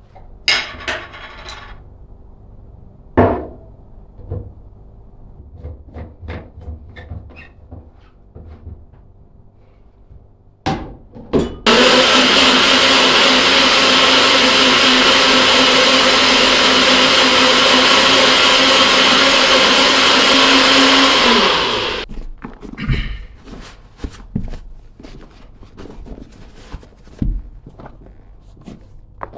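A few knocks and clatter, then an electric blender runs loud and steady for about ten seconds before winding down. More knocks and clicks follow.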